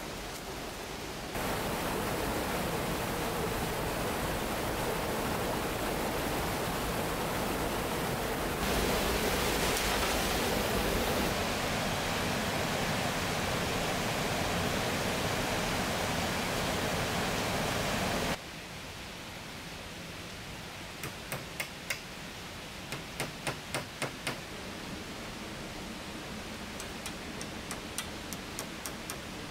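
A steady rushing hiss whose level jumps several times, then about two-thirds through drops to a quieter hiss. Short runs of rapid sharp clicks or taps come over it, several a second.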